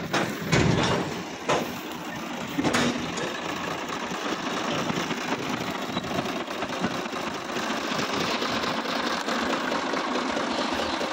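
Sonalika DI-745 III tractor's three-cylinder diesel engine idling with a steady, rapid clatter, heard up close. A few knocks in the first three seconds.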